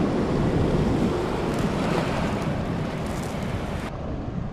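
Small waves washing up on the shore, with wind buffeting the microphone. Near the end the sound turns duller and a little quieter.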